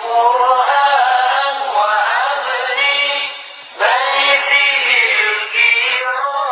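A voice singing a sholawat in long, drawn-out melismatic lines, with a short breath pause a little past three seconds in before the singing resumes.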